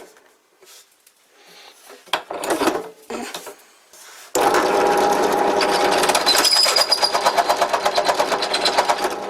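A few light handling clicks and scrapes, then a power tool starts abruptly about four seconds in and runs loudly, with a rapid, even pulsing chatter building up a couple of seconds later.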